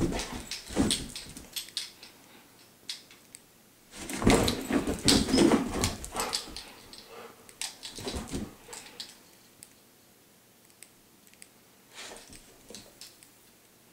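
Dog scrambling and pouncing on carpet while chasing a laser dot: bursts of scrabbling paws and thumps in four spurts, with quieter gaps between.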